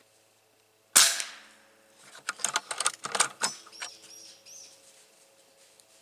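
A single sharp gunshot about a second in, fired at a squirrel, dying away over about a second. Then a quick run of crackles and rustles in dry leaves, and a few faint high chirps.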